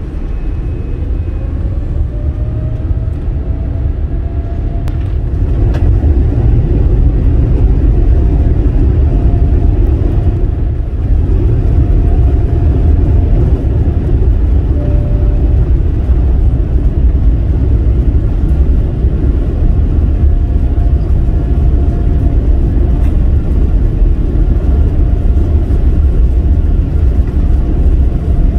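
Steady low rumble of an airliner's jet engines and rolling gear heard inside the cabin during taxi, growing louder over the first few seconds, with a faint whine rising in pitch near the start.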